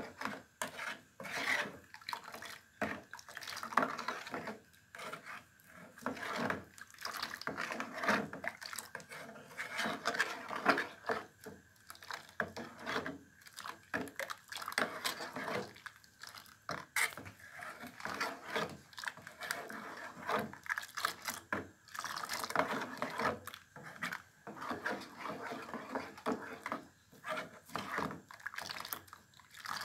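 Wooden spoon stirring a thin chocolate milk mixture in an aluminium pot: irregular swishes and sloshes of liquid, with light scrapes of the spoon against the pot.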